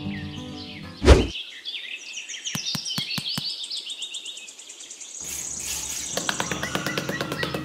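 Small birds chirping, with a single loud thump about a second in and a few sharp clicks. From about five seconds in, a small metal garden trowel scrapes across sand with a rapid gritty rasp while music starts again.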